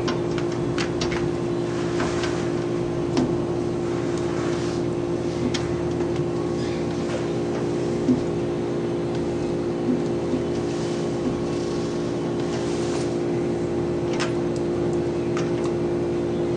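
A steady mechanical hum made of several fixed tones, even in level throughout, with scattered faint clicks and short soft rustling noises over it.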